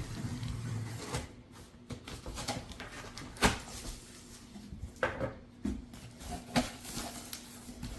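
Cardboard shipping box being opened by hand: flaps pulled open and the packaging handled, with scattered sharp knocks and clicks, the loudest about three and a half seconds in.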